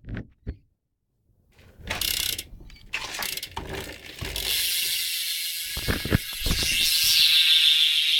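BMX rear cassette hub (Primo Mix) freewheeling as the wheel spins, its pawls making a fast continuous ratcheting buzz. It starts about four seconds in after some handling knocks and grows louder toward the end.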